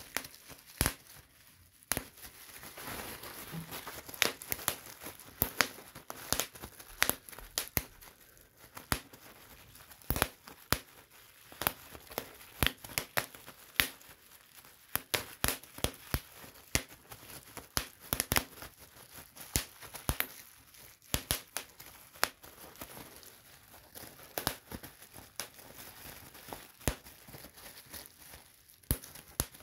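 Plastic bubble wrap being popped by hand: an irregular run of sharp pops, a few each second, with the plastic crinkling between them.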